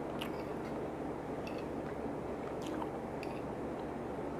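Soft, wet chewing of a mouthful of food over a steady background hiss, with a few faint clicks spread through.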